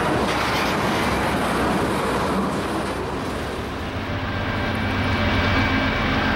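Freight tank cars rolling past on the rails, steel wheels rumbling and clattering. After a cut about four seconds in, this gives way to a steadier low drone of approaching diesel locomotives, with a few faint steady tones over it.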